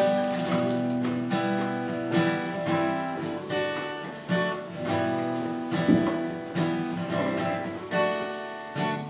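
Steel-string acoustic guitar strummed solo in an instrumental break of a song, chords ringing between steady strokes about every three-quarters of a second.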